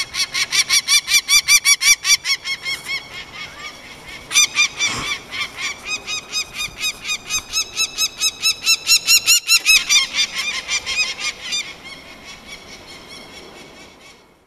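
Adult peregrine falcon giving its harsh, rapid kak-kak-kak alarm call, about five calls a second, with a short break about three seconds in before the calling resumes and then fades. This is a parent angry at intruders in its nest.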